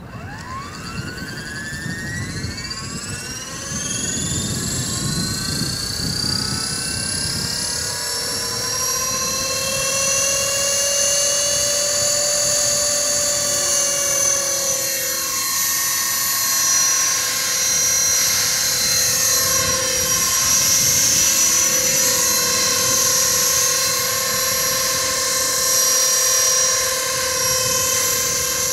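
Electric 450-size RC helicopter spooling up. The motor and gear whine climbs in pitch over the first several seconds and grows louder, then settles into a steady high whine with the rotor whirring as the model lifts off into a low hover.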